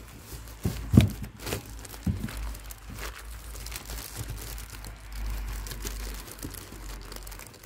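Clear plastic bag liner crinkling and rustling as it is handled and spread inside a cardboard box, in irregular crackles with one louder bump about a second in.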